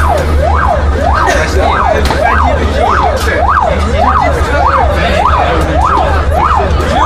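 Emergency vehicle siren on a fast wail, its pitch sweeping up and down nearly twice a second, over a steady low rumble.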